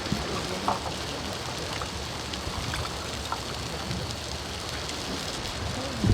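Makchang and garlic chives sizzling in a hot pan: a steady hiss with a few small pops.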